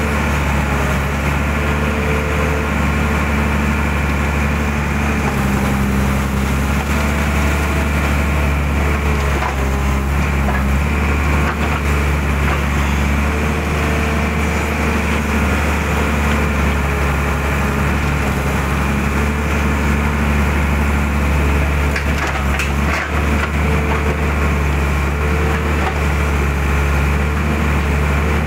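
Mitsubishi hydraulic excavator's diesel engine running steadily under working load, heard from the operator's cab as the boom and bucket dig mud out of a ditch. Its note shifts slightly as the hydraulics work, with a few light knocks about three quarters of the way through.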